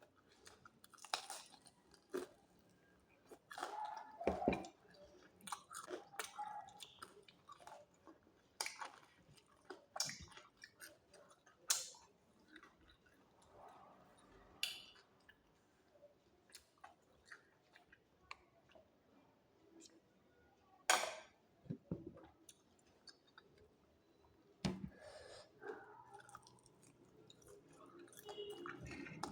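A person chewing and crunching food close to the microphone, with irregular crisp crunches and wet mouth smacks.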